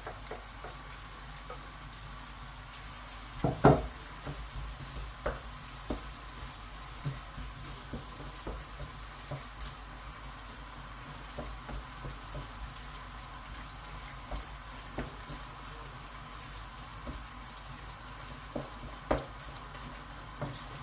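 Onions and garlic frying in hot oil in a wok: a steady sizzle, with scattered short clicks and knocks of a utensil stirring against the pan and one louder knock about three and a half seconds in.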